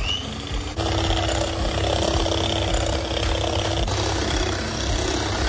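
Electric hand mixer running steadily, its beaters whisking whipping cream in a bowl, with a steady motor hum that comes in about a second in and drops out about four seconds in.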